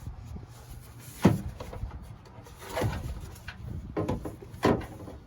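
A few sharp knocks and clunks of parts being handled, the loudest a little over a second in, with others near three, four and five seconds.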